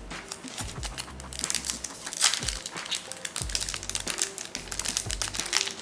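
Foil trading-card pack wrapper crinkling in the hands as it is opened, over background music.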